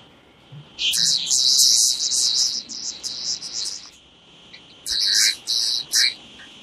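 Birds chirping in quick, high-pitched runs: one lasting about three seconds from about a second in, and a shorter one about five seconds in.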